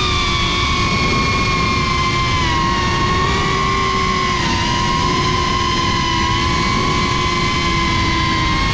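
FPV quadcopter's electric motors and propellers whining steadily, heard from the camera mounted on the drone, the pitch dipping slightly a couple of times.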